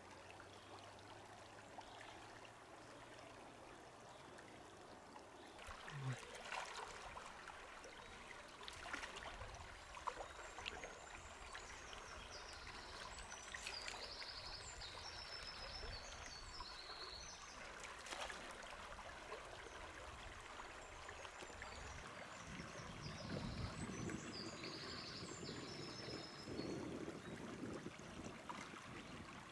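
Shallow river flowing, a faint steady rush of water. Short high chirps come in twice in the second half.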